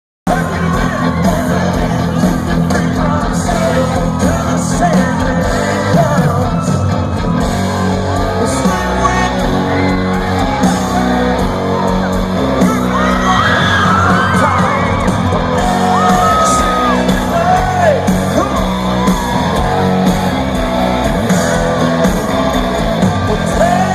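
Live country concert: a loud amplified band playing with singing, and audience members yelling and whooping over it.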